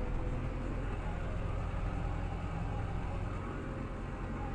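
Tractor engine running steadily at working revs, heard from inside the cab while the tractor drives a rotary tedder turning cut grass: an even, low drone with no changes.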